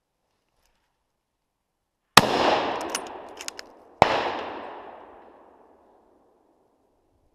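Two close gunshots from a hunting gun, about two seconds apart, each followed by a long echo rolling away through the woods. A few small clicks fall between the shots.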